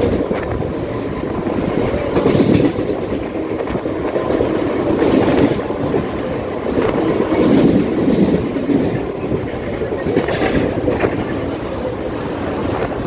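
Mumbai suburban electric local train running at speed, heard from on board: a continuous rumble of wheels on rail with louder clickety-clack knocks every couple of seconds as the wheels cross rail joints and points.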